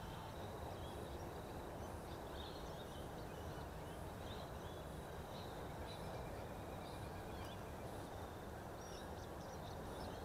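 Quiet outdoor ambience: a steady low background noise with faint, scattered bird chirps.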